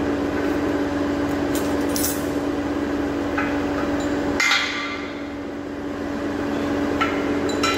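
Steel hand tools clinking as a smithing chisel is picked up, then one loud sharp metallic clank with a short ring about four and a half seconds in. Under it runs a steady machine hum that drops away at the clank and comes back near the end.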